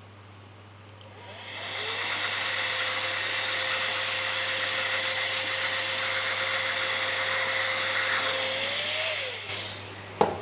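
Electric motor of a workshop machine spinning up to a steady speed with a hiss, running for about seven seconds, then winding down in pitch and stopping, followed by a sharp click.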